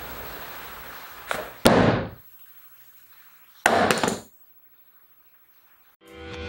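Two impacts on a cardboard box: a sharp heavy thud about a second and a half in, and a second knock about two seconds later, with a soft hiss before the first. Music begins to fade in near the end.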